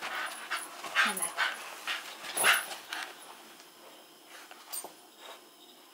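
Shiba Inu panting and moving about, with a brief whine about a second in; the sounds thin out after about three seconds.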